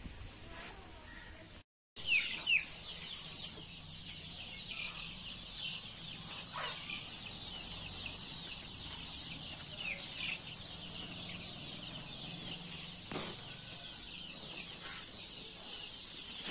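Many birds chirping, a dense, continuous chatter of short, high, falling calls, with a couple of brief knocks. The sound cuts out completely for a moment about two seconds in.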